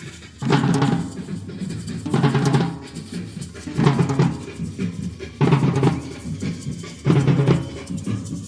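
Latin drums being played at a sound check: a loud, deep drum phrase that repeats about every second and a half.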